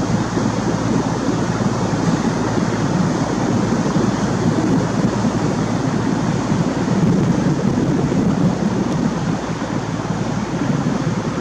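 Steady low rushing noise of wind and water on open sea water, with no distinct events.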